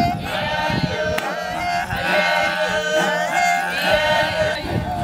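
A group of Maasai singers chanting a traditional song together: high held notes that slide between pitches, over a steady low drone.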